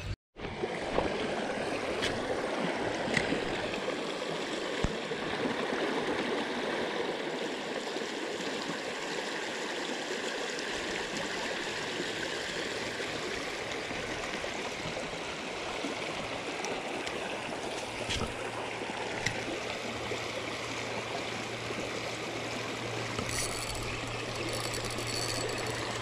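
Creek water flowing with a steady rushing, with a few faint ticks on top. The sound drops out for a split second right at the start.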